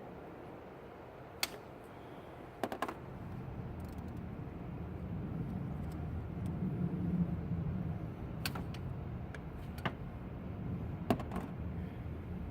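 Sharp metallic clicks and clinks from hand tools being handled against metal, a few single ones and one quick cluster, over a low vehicle engine rumble that swells in the middle and then holds.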